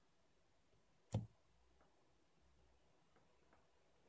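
Near silence with a single short knock about a second in, from the opened tablet's plastic housing being handled against the table.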